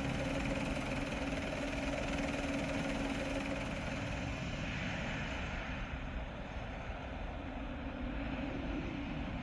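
Helicopter running steadily in a stormy wind, part of an animated rescue story's soundtrack. A low steady hum fades out about four seconds in, and the higher hiss drops away a little later.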